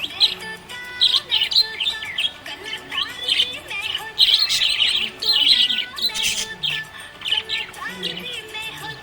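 Budgerigar chirping and chattering in quick runs of short, high chirps and warbles, with hardly a pause.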